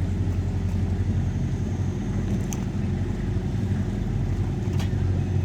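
Fishing boat's inboard engine running steadily at a constant speed, a low, even drone.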